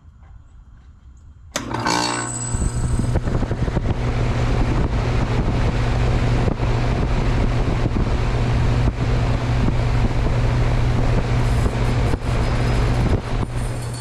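2012 Goodman GSZ13 heat pump outdoor unit starting up in heat mode: about a second and a half in, the compressor and condenser fan come on suddenly, then run with a steady low hum and the rush of fan air.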